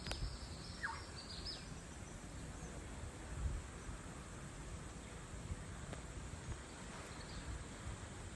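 Quiet outdoor ambience with a low rumble, with a few faint high bird chirps in the first second and a half and once more near the end.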